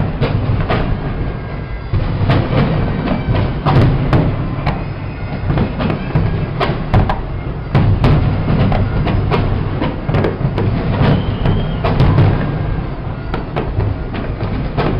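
Fireworks display: a loud, rapid succession of bangs and cracks over a continuous low rumble.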